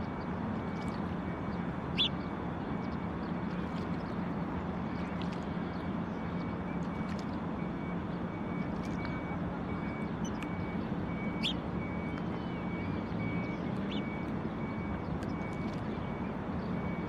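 Steady traffic hum with a vehicle's reversing beeps repeating evenly in the background, and a few short, sharp calls from Arctic terns, the loudest about two seconds in.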